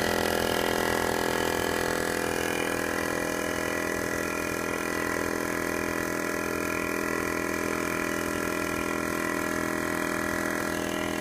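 Portable single-piston car tyre air compressor running steadily, its motor and piston pumping air into a flat tyre through a hose on the valve.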